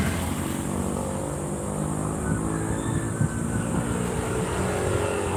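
Low, steady engine hum of a road vehicle that has just driven past on the road.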